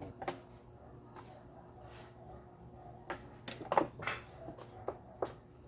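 Irregular light clicks and knocks, about ten, from small hard parts being handled, over a faint steady hum.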